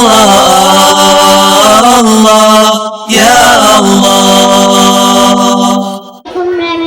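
Unaccompanied nasheed singing: voices chanting in long held notes, each phrase held about three seconds before breaking off, with a new phrase starting near the end.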